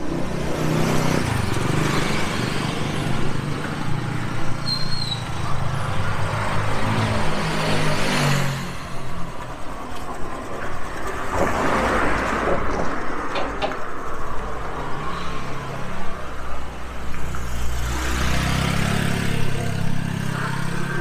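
Street traffic: motor vehicles driving past close by one after another, their engine hum and tyre noise swelling and fading several times.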